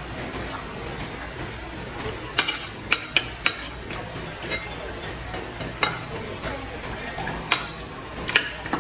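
Close-up eating sounds: spoons and forks clicking irregularly against plates and plastic food containers, with chewing and the slurping of noodles.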